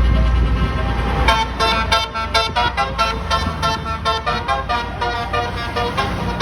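Indonesian telolet (basuri) multi-tone bus horn playing a quick melody of short notes, fainter at first and loud from about a second in, over a steady low rumble.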